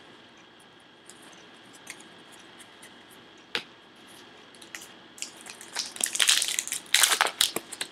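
Small taps of baseball cards being set down on a wooden table, with one sharper tap a little past three seconds in. From about five and a half seconds in, loud crinkling and tearing as a card pack's wrapper is ripped open.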